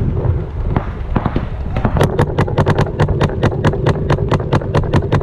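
Planet Eclipse CS2 paintball marker firing a rapid, even string of shots, about seven or eight a second, after a few scattered shots in the first two seconds.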